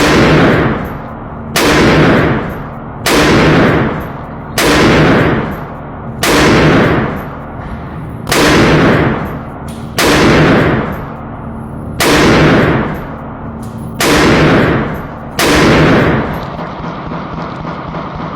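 An AR-15 pistol with a muzzle brake fires about ten single shots at a slow, steady pace, one every second and a half to two seconds. Each loud crack rings out in a long echo from the walls of an indoor range.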